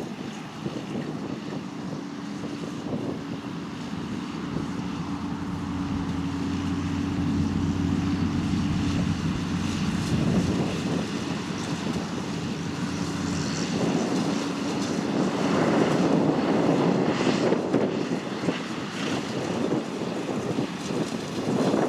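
John Deere tractor engine working in the field with its baling gear, a steady drone that grows louder over the first two-thirds as it comes closer.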